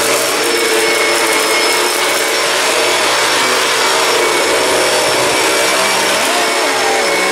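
An Oreck XL upright vacuum cleaner running steadily as it vacuums up a mess from the floor. The loud, even noise has a steady motor whine.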